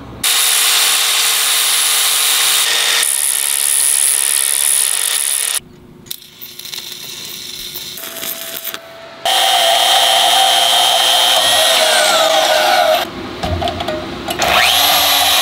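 Power tools at work in short sections that switch abruptly. A portable band saw motor runs, winds down with a falling whine, and near the end starts up again with a rising whine.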